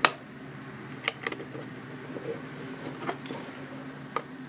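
A handful of sharp, small clicks and ticks, the first the loudest, as small screws and a screwdriver are handled while fitting screws into the aluminum case, over a faint steady hum.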